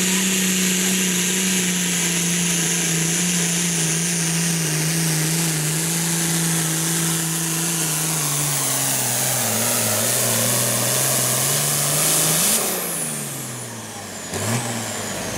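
Turbocharged diesel engine of an International Harvester Super Farm pulling tractor running flat out under the load of the pulling sled, its pitch slowly falling as the sled drags it down. About twelve seconds in the throttle is cut and the engine note drops away, with one short rev near the end.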